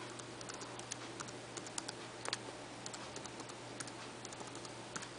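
Typing on a 2009 unibody MacBook Pro's built-in keyboard: quick, irregular key clicks.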